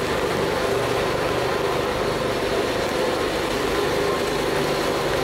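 Steady hum of city traffic, an even rumble with no single vehicle standing out.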